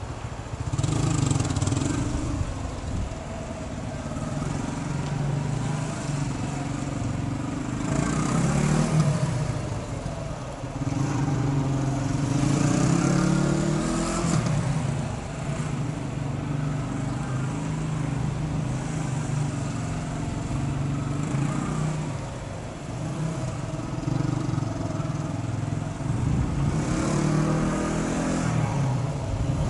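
2016 TVS Apache 180's single-cylinder engine revving up and down again and again as the motorcycle accelerates and brakes through tight gymkhana turns, its pitch repeatedly climbing and dropping.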